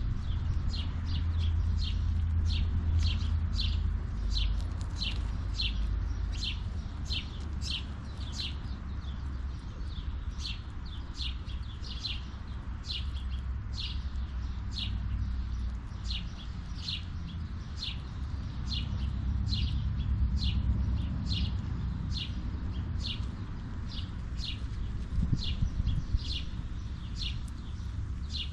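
A songbird calling with short, high, downward-sliding chirps, repeated about twice a second without a break, over a steady low rumble.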